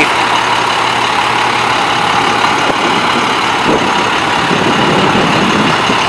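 International DT466E 7.6-litre inline-six diesel in a school bus idling steadily.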